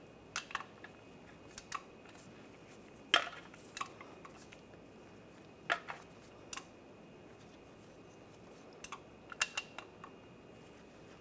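Hand ratchet and socket snugging down bolts on an engine: a dozen or so isolated metal clicks and clinks at irregular spacing, the loudest about three seconds in.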